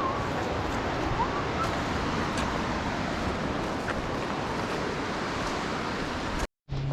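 Steady rushing of a mountain creek's flowing water, an even hiss without rhythm, cut off abruptly near the end.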